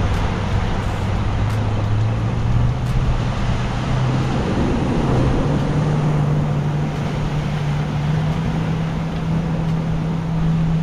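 A steady engine hum whose pitch climbs in a few steps over the first five or six seconds and then holds, over a broad rushing noise.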